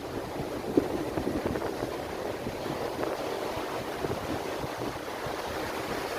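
Ocean surf washing onto the beach in a steady rush, with wind buffeting the microphone and a brief thump about a second in.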